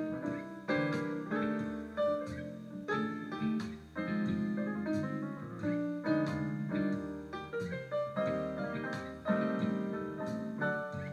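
Piano playing an instrumental break, with chords struck about once a second under a moving melody line.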